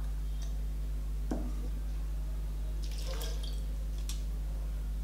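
Soaked mustard seeds and their soaking water poured from a glass bowl into a mesh strainer, the water dripping and trickling through into the bowl below, with a light knock of the bowl against the strainer about a second in. A steady low hum runs underneath.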